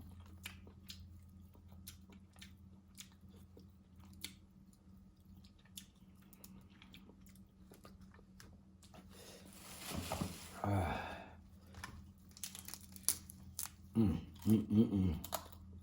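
Steamed Maryland blue crabs being cracked open and eaten: scattered sharp clicks and cracks of shell, with chewing and sucking on the meat, over a faint steady electrical hum. A longer noisy stretch comes about ten seconds in, and short hummed vocal sounds near the end.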